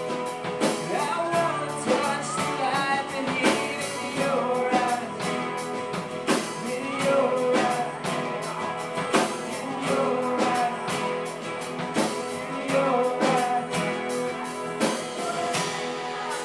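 Live band playing a song: strummed acoustic guitars, a male voice singing, and a drum kit keeping a steady beat.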